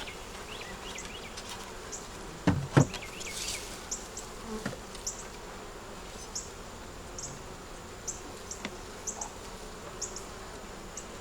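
Honey bees buzzing steadily around an opened hive, with two sharp knocks close together about two and a half seconds in, and faint short high chirps recurring throughout.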